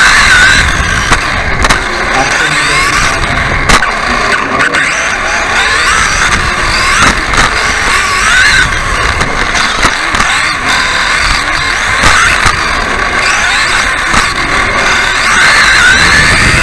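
RC off-road buggy's motor and drivetrain whining, the pitch rising and falling over and over as the throttle is worked through the corners. Sharp knocks come from the chassis hitting bumps and landing.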